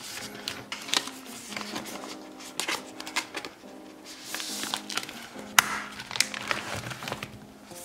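Plastic binder pocket pages and card sleeves rustling and clicking as photocards are slid in and out of them, with a sharp click a little past halfway. Soft background music plays under it.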